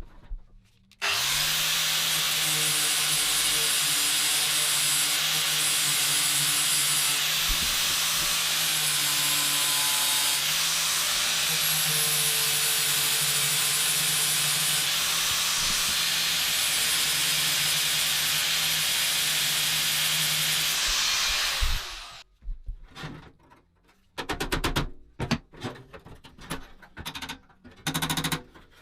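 A power tool running steadily at full speed for about twenty seconds, a steady hum under a dense hiss, which then cuts off and is followed by a series of sharp clicks and knocks.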